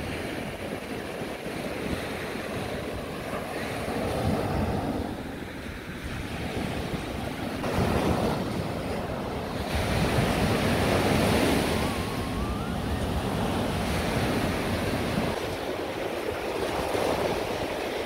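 Baltic Sea surf breaking and washing up a sandy beach, a continuous rush that swells and eases as each wave comes in and runs back.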